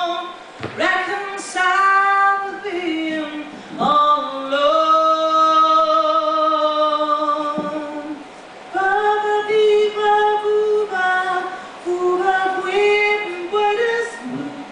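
A woman singing, holding long sustained notes, with a short break about eight seconds in before she sings on.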